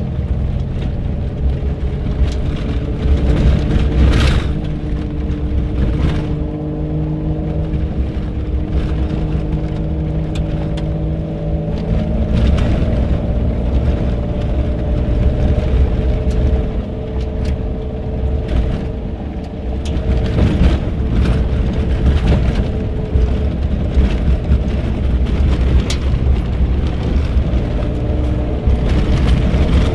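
A lifted 1992 Toyota 4Runner driving slowly over a dirt trail, heard from inside the cab: a steady low rumble of engine and tyres on dirt, with the engine note rising and falling. Occasional knocks and rattles come as the truck goes over bumps.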